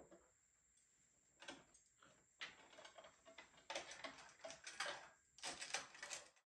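Light clicks and clatter of cosmetics and makeup brushes being handled and set into a rotating makeup organizer, coming in several short clusters and cutting off abruptly near the end.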